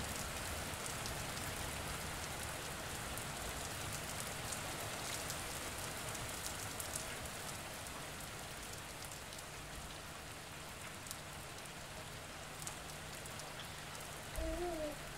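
Steady hiss of splashing water peppered with fine crackling drips, easing off slightly; near the end a low thump and a short wavering tone.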